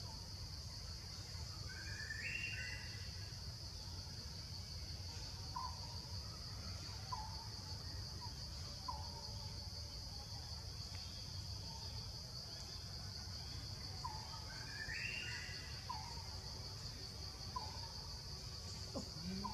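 Forest ambience: a steady, high insect drone, with scattered short bird chirps and two longer bird calls, one about two seconds in and one near fifteen seconds, over a low rumble.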